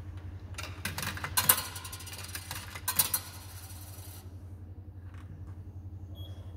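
Coins being fed into the coin acceptor of a biometric payment kiosk, clinking and rattling down through the mechanism for about three seconds, with two louder drops, over a steady low hum.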